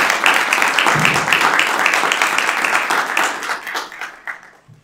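Audience applauding, many hands clapping; the applause fades away near the end.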